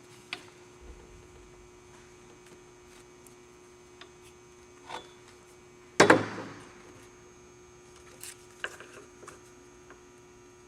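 Scattered small clicks and rubs from a rubber weatherstrip being worked by hand into the metal channel of a vent window frame, with one loud knock about six seconds in, over a steady electrical hum.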